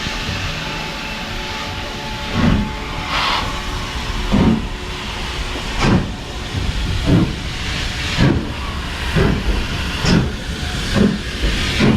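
Ivatt Class 2 2-6-0 steam locomotive 46447 getting under way: its exhaust beats quicken from about one every two seconds to about one a second, over a steady hiss of steam.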